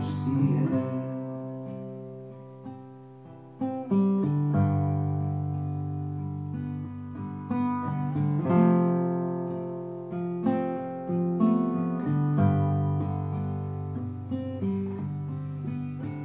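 Acoustic guitar, fingerpicked: single plucked notes over held bass notes, each ringing and dying away, in the closing instrumental passage of a song.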